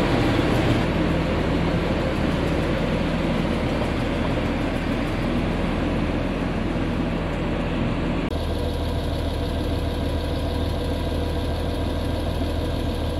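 Agco Challenger MT665B tractor's six-cylinder diesel engine running steadily as the tractor pulls out of the shop, back in running order after a transmission replacement. About 8 seconds in the sound cuts to a deeper, steadier idle.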